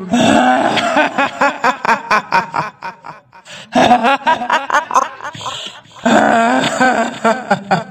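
A woman's cackling laugh, the 'hihihi' of the kuntilanak ghost in Indonesian horror lore, in quick staccato pulses. It comes in three runs, with short breaks about three and a half and six seconds in.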